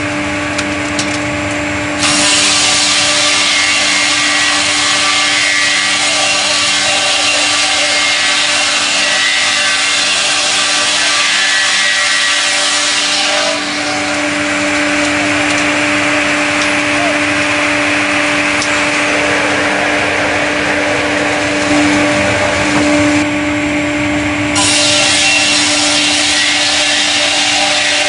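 StrojCAD KR 58 L6 band sawmill cutting a log: a steady machine hum under the dense hiss of the blade through the wood. The cutting hiss swells about two seconds in, thins out around the middle, and comes back up near the end.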